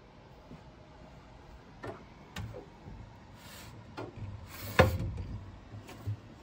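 Handling noises: a few short knocks and two brief scrapes, the loudest a sharp knock near the end.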